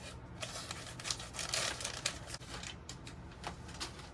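A mailing package being opened by hand: irregular tearing and rustling of packaging with short sharp crackles, busiest about a second and a half in.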